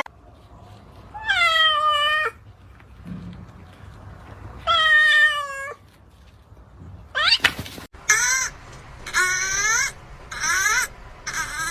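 Cat meowing: two long, drawn-out meows a few seconds apart, each falling slightly in pitch, then a quicker run of four or five shorter meows from about seven seconds in.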